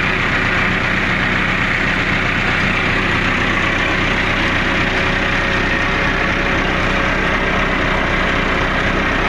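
Massey Ferguson 165 tractor engine running at a steady speed, heard close up from the driver's seat.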